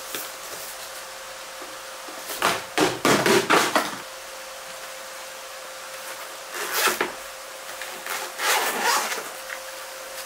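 Cardboard product boxes and a padded carrying case being handled while unpacking: rustling, sliding and light knocks in three irregular bursts, with a faint steady hum underneath.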